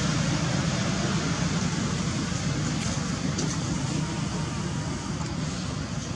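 Steady low rumbling background noise with an even hiss above it, unchanging apart from slowly easing off toward the end.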